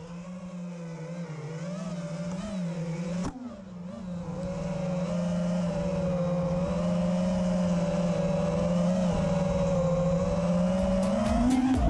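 FPV racing quadcopter's brushless motors and propellers whining at a fairly steady, slightly wavering pitch, fading in and growing louder. There is one sharp click about three seconds in. A music beat comes in near the end.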